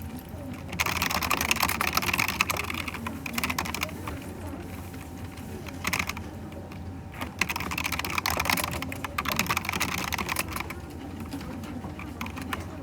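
Typing on a computer keyboard in quick runs of keystrokes: two long spells with a short burst between them.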